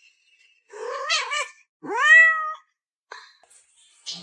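A domestic cat meowing twice: a short wavering call about a second in, then a longer meow that rises in pitch and holds.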